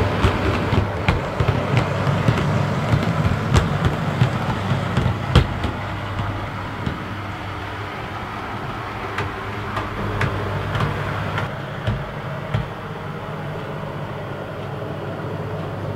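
OO gauge Bachmann/EFE Class 143 Pacer model train running on the layout track: a steady low hum with irregular clicks of the wheels over rail joints and points. The clicks are denser and louder for the first six seconds or so, then the sound drops off a little as the train moves away.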